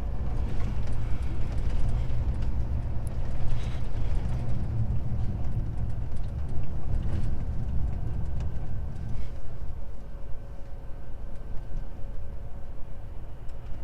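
Truck engine and road noise heard from inside the cab while driving: a steady low rumble with tyre noise, easing a little in the second half.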